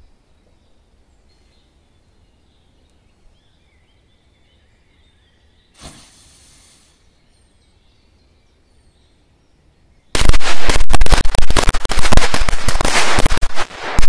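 A ring of Korsar-3 firecrackers linked by a powder trail goes off about ten seconds in as a fast, dense string of loud bangs that keeps going. Before that there is a quiet stretch with faint bird chirps and a brief hiss about six seconds in.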